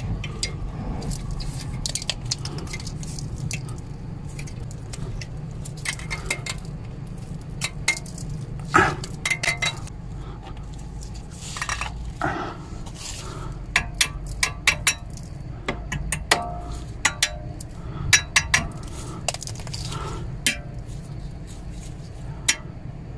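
Irregular metallic clinks and taps as a brake pad retaining spring clip is worked onto a VW Passat B6 disc brake caliper and the caliper is tapped with a small hammer. The sharpest clinks come about nine seconds in and again in a cluster in the second half.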